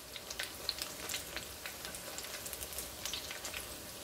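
Batter-coated dandelion flowers deep-frying in hot oil: a steady sizzle with many scattered small crackles and pops.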